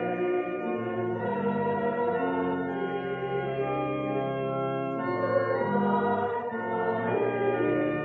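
Hymn sung by a congregation, accompanied on a 1956 church organ, with held chords that change every second or so.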